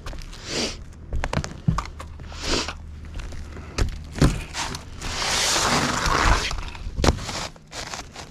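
Roof-deck work: sharp knocks and scraping on wood, with a longer scraping rush about five seconds in and a steady low hum underneath.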